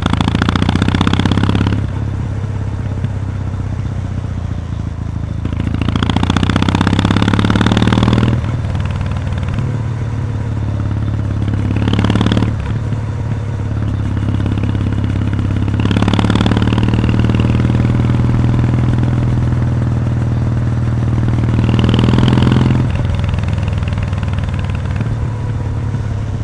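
Kawasaki W800's air-cooled parallel-twin engine running through its stock mufflers with the baffles removed, heard while riding. A steady exhaust drone swells louder about five times as the throttle is opened, the pitch rising a little, then settles back.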